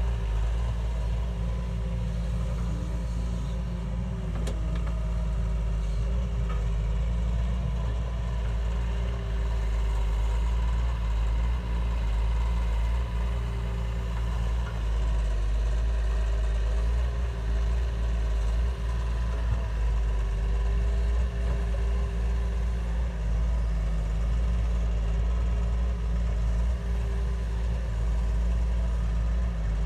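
Heavy machine engine running steadily, a deep even drone with faint steady tones above it.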